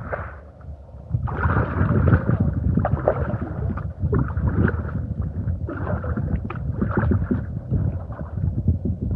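Kayak paddling: paddle blades splashing and dipping into river water in irregular strokes about once a second, over a steady low rumble.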